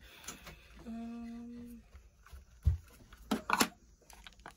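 A person hums one steady note for about a second. Then comes a low thump, and a short clatter of small plastic toy pieces being handled and set down on a table.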